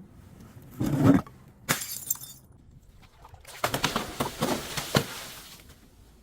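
Glass being smashed and crushed. There is a loud crunch about a second in and a sharp crack soon after, then a run of crackling, grinding crunches from about three and a half to five seconds in.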